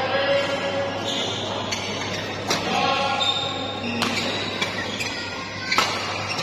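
Badminton rackets striking the shuttlecock during a doubles rally: sharp cracks, about three, the loudest near the end, over a steady murmur of crowd voices.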